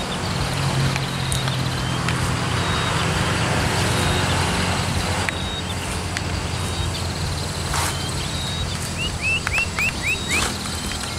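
Footsteps and rustling through dense undergrowth over a low steady rumble, with a faint high insect trill. Near the end a bird gives a quick series of about six short chirps.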